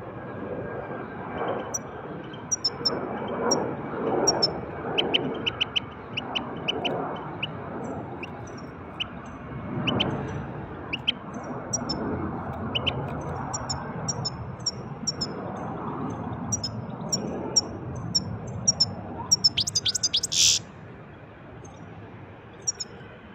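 European goldfinch singing: a long run of quick, tinkling high chirps and trills, with one short, loud harsh note about twenty seconds in, over low background noise.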